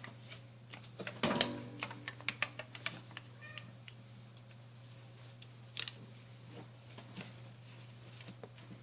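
Aluminium foil tape being handled and pressed onto a dishwasher door: irregular crinkles and clicks of the foil, busiest about a second in, over a steady low hum.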